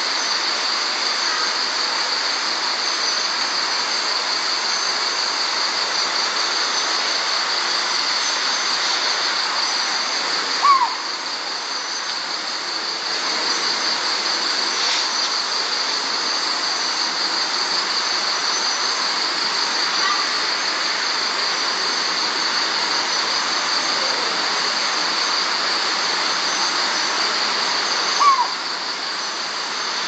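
Collared scops owl giving a short single call twice, about 17 seconds apart, each a brief note that drops slightly in pitch. Underneath, a steady chorus of crickets and night insects with a high, even buzz.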